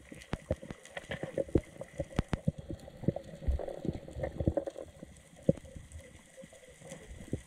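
Irregular sharp clicks and soft knocks underwater, several a second, heard muffled through an action camera's waterproof housing while swimming over a reef.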